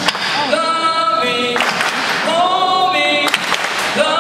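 A small group of young voices singing long held notes in harmony without instruments, phrase after phrase. A few sharp knocks fall between the phrases.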